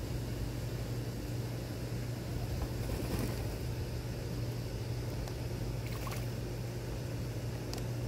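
A steady low mechanical hum, with a few faint, brief splashes or clicks about three seconds in, around six seconds, and near the end.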